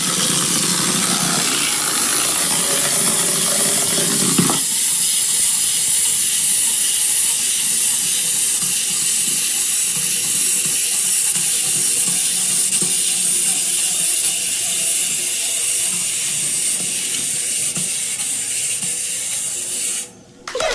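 Steady, loud hissing noise used as a celebration sound effect, fuller for the first four and a half seconds and then thinner and higher, dropping out briefly near the end.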